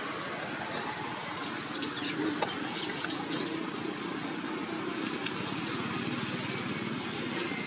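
Steady outdoor background hum, with a few soft clicks and faint high chirps about two to three seconds in.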